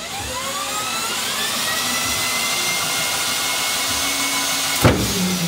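Corded electric drill running, its motor whining up to speed over the first second or so and then holding a steady pitch, with one sharp knock about five seconds in.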